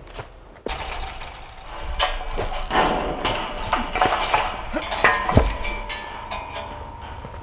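Chain-link fence rattling and clinking as someone climbs over it, with many sharp metallic clatters. A steady high tone joins in after about five and a half seconds.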